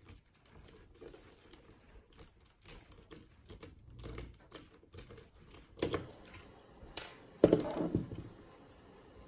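Small clicks and taps of a 2.5 mm hex driver working the screws and plastic spur gear cover of an RC car, with a louder cluster of clattering knocks about three-quarters of the way in.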